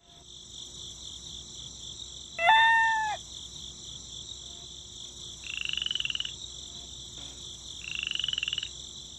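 Frogs croaking in two pulsed trills over a steady high-pitched insect buzz, with one loud, short animal call about two and a half seconds in.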